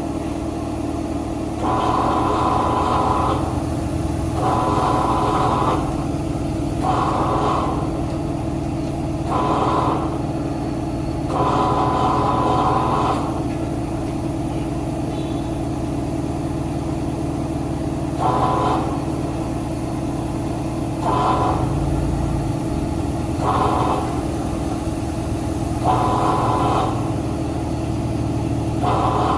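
Tire-changer machine mounting a tire onto a rim: its turntable motor runs in about ten short bursts of one to two seconds, some with a steady whine, over a continuous low mechanical hum.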